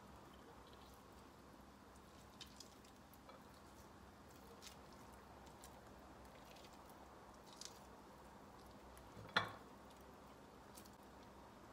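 Faint soft squishing and small scattered clicks of boiled chicken thigh meat being pulled apart by hand over a plate, with one sharper knock about nine seconds in.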